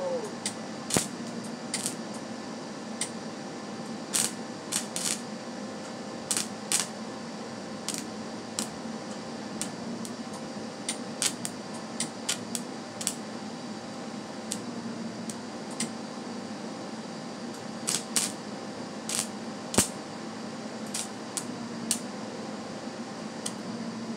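Welding on a steel go-kart frame: irregular crackles and sharp pops over a steady hiss and low hum, the arc sputtering in short spells rather than running in one smooth bead.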